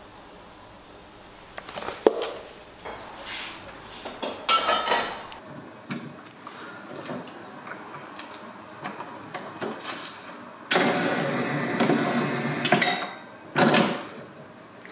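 Countertop can-seaming machine running for about two seconds to seal a lid onto a plastic drink can, followed by a second, shorter run near the end. Before it, scattered clicks and knocks as the can is handled and set in place.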